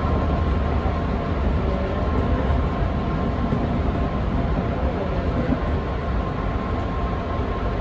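Electric commuter train running on the rails, heard from inside the driver's cab: a steady low rumble of wheels and running gear with a faint steady whine above it.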